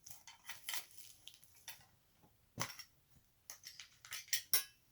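Small metal Pokémon collector's tin and its contents being handled: irregular clicks and light metallic clinks with short pauses between, the sharpest few near the end.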